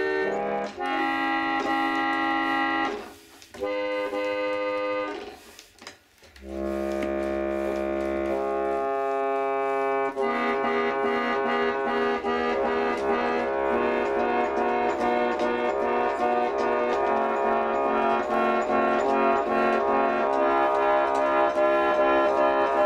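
Victorian Charles Idle harmonium, a pedal-pumped reed organ, playing sustained chords. Three held chords with short breaks come first, then from about ten seconds in it plays without a break, the chords changing more often. Its bellows are patched with soft handbag leather.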